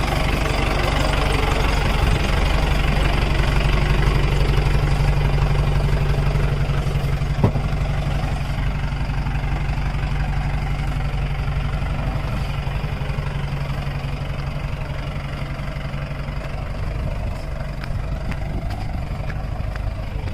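Mahindra jeep's diesel engine running at low, steady revs while crawling down a rocky off-road track, with a single sharp knock about seven seconds in.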